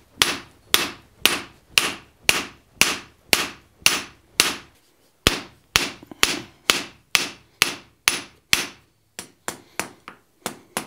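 Hand hammer drawing out a hot bar of 3/8-inch square mild steel on an anvil: steady blows about two a second, each with a short ring. After a brief pause about halfway, lighter, quicker blows follow near the end.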